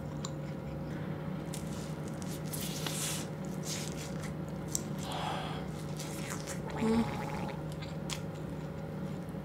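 Close-miked chewing of a bite of air-fried corn dog, with soft, moist crackles from the batter and sausage, over a steady low hum. There is a short louder sound about seven seconds in.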